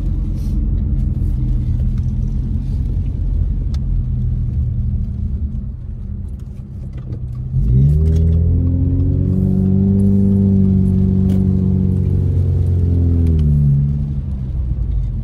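Car engine and tyre noise heard from inside the cabin while driving on a wet road. About halfway through, the engine gets suddenly louder and rises in pitch as the car accelerates, holds steady for several seconds, then drops back near the end.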